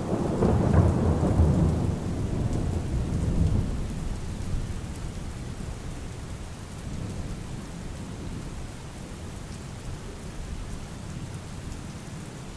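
Steady rain falling, with a low roll of thunder rumbling and dying away over the first few seconds.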